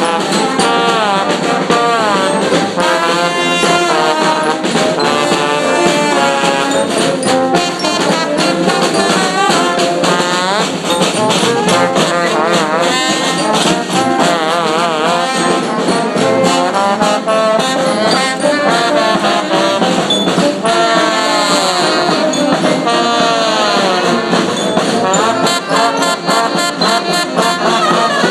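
Brass band playing: sousaphone, saxophone and other horns over a drum, loud and continuous, with sliding horn lines and steady drum beats throughout.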